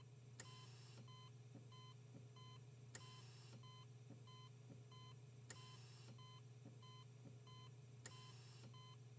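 Near silence: a faint steady low hum, with faint short beeps about twice a second and a sharp click about every two and a half seconds.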